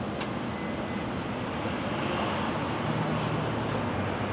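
Steady street traffic noise, growing a little louder about halfway through as a low vehicle engine hum comes in.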